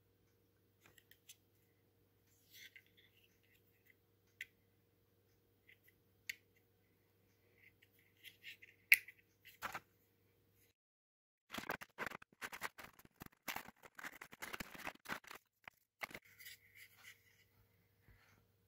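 Faint handling noise from a memory card and its packaging: a padded paper mailer and cardboard box. Scattered small clicks and rustles, the sharpest about nine seconds in, then a few seconds of dense crinkling and rustling from a little past the middle.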